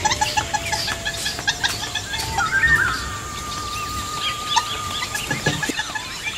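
Birds calling: repeated short chirps and whistles at several pitches, with one long wavering whistle held for about three seconds in the middle.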